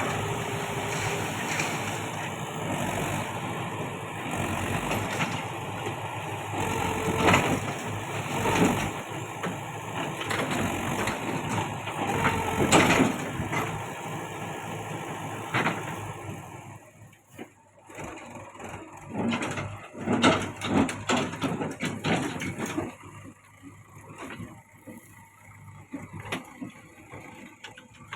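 A heavy diesel machine engine runs steadily, most likely the JCB 3DX backhoe loader, with a few sharp metallic knocks. About two-thirds of the way through it drops away to quieter, irregular clatter and bursts.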